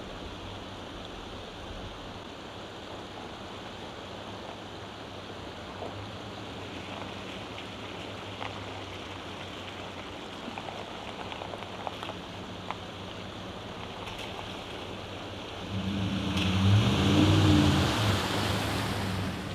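Shallow creek water running steadily over a ford, then about sixteen seconds in a lifted Chevrolet Silverado pickup drives through it: its engine note rises and falls as it passes, and its tyres throw up a loud spray of splashing water.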